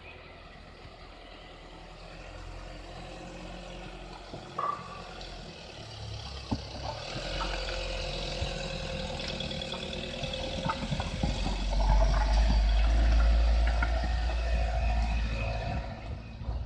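Police van's engine running as the van reverses and then pulls away across paving slabs. The sound grows steadily louder to a deep rumble as the van passes close, with a few short knocks along the way.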